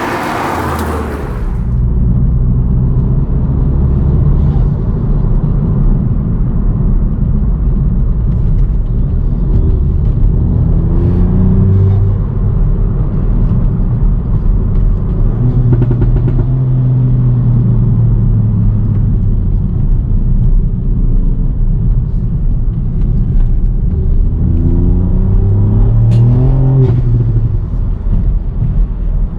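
Mk8 Ford Fiesta ST's turbocharged 1.5-litre three-cylinder engine, fitted with a Revo open-cone induction kit, pulling on the road with its intake and exhaust note rising and falling in pitch as it accelerates and eases off several times, the clearest climb near the end. A brief loud rushing hiss covers the first second or so.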